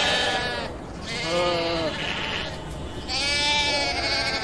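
Domestic sheep bleating three times, each call lasting about a second; the middle call is lower-pitched than the other two.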